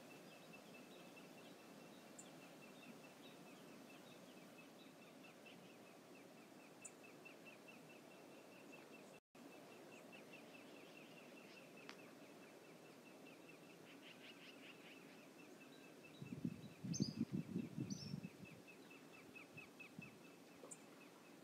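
Faint outdoor ambience: a steady low noise with a long run of rapid, evenly spaced high ticks. About 16 seconds in come a couple of seconds of louder low, choppy bursts.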